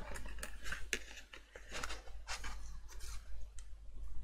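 Sheet of cardstock rustling and sliding on a cutting mat in short, irregular strokes, with light scrapes as a thin metal cutting die is laid on it.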